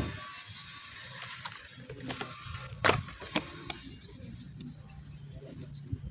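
Cutting during the rust repair: a hiss with a few sharp clicks about two, three and three and a half seconds in, the hiss stopping about four seconds in.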